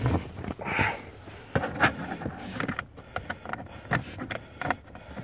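Scattered light clicks, knocks and rustling from handling inside the car's footwell, with a brief rustle a little under a second in and a run of small clicks in the second half.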